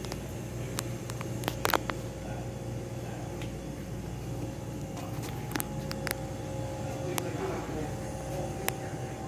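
Steady low indoor hum with scattered sharp clicks, the loudest a quick cluster about a second and a half in, and faint voices in the background.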